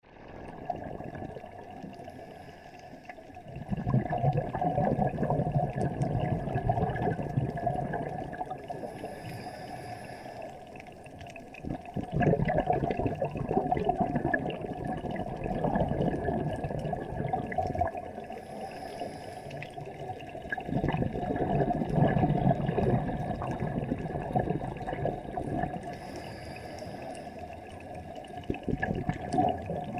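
Underwater sound picked up by a diver's camera: spells of rushing, bubbling noise from exhaled breath bubbles about every eight to nine seconds, with quieter water noise between them.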